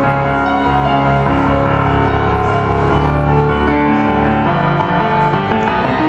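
Solo grand piano playing full chords and sustained notes in a flowing passage.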